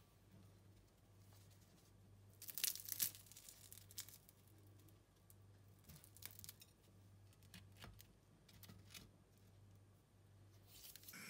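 Crisp fried pastry wrapper of a chicken roll crackling and tearing as it is broken open by hand, the loudest cluster of crackles about two to three seconds in, then a few fainter crackles later on.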